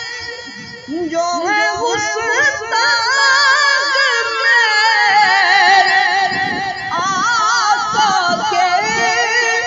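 Background music with a singing voice, its long melodic notes wavering with strong vibrato; the voice comes in more strongly about a second in.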